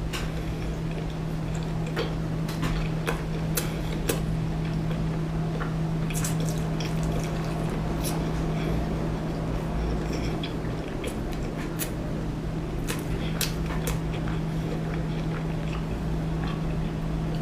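A person eating seafood: wet mouth sounds and scattered sharp clicks of utensils against a dish, over a steady low hum.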